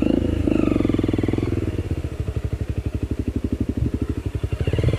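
Trail motorcycle engine running at low revs with a steady chugging beat. It picks up briefly in the first second and again near the end as the throttle opens.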